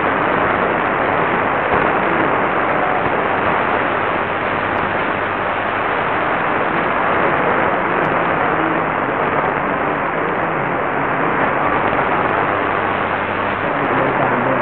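Medium-wave static hissing steadily from a Qodosen SR-286 portable radio tuned to 1449 kHz AM, with a low steady hum underneath and no audible programme.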